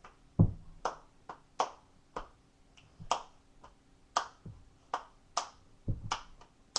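Stepping routine by one person: a run of sharp hand claps and slaps on the body at a quick, uneven beat, with a heavy foot stomp about half a second in and another near the end.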